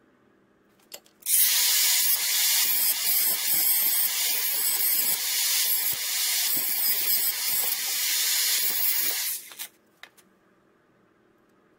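Cordless angle grinder grinding metal held in a bench vise: a loud, gritty, high-pitched grinding noise that starts about a second in, runs for about eight seconds and cuts off near the end.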